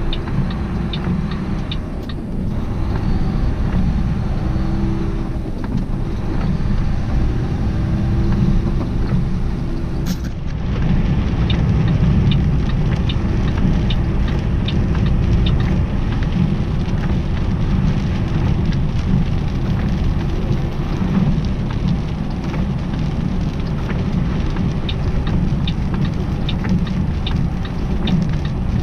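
Semi-truck engine running and tyres hissing on a wet road, heard from inside the cab, with a row of light ticks over it. There is a short click and a brief dip in the engine sound about ten seconds in.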